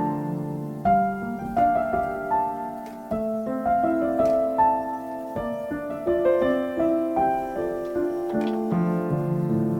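Background piano music: a calm melody of single notes over soft chords.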